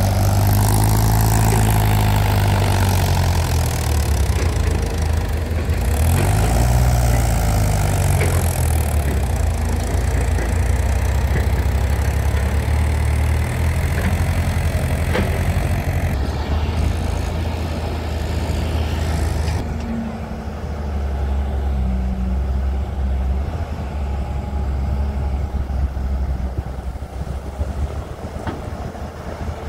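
Mahindra 415 DI tractor's diesel engine revving as it pulls a trolley heaped with soil away, its pitch rising and falling. Later, the diesel engine of a Hyundai 210 hydraulic excavator running as it digs.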